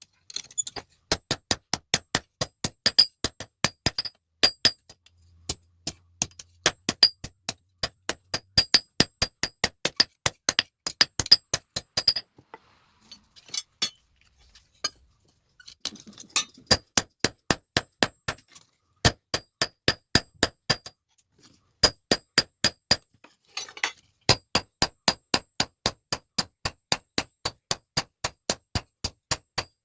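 Hand hammer striking steel on an anvil in quick, ringing blows, about three a second, in runs broken by short pauses, with a longer break about halfway through.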